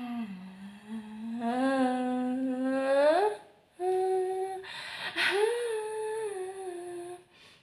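A woman's voice singing wordlessly and unaccompanied: a long held note that rises at its end about three seconds in, a short break, then two more held notes.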